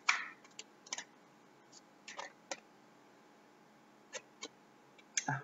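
Faint, scattered clicks and soft rustles of oracle cards being handled, about eight short sounds with quiet between them.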